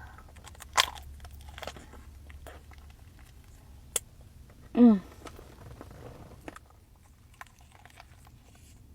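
Close-miked biting and chewing of a pastry: crisp crunches and crackles, with the sharpest bites about a second in and again about four seconds in.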